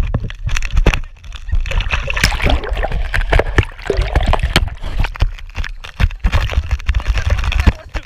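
Fast, muddy whitewater river sloshing, gurgling and splashing right at the microphone, in loud irregular surges.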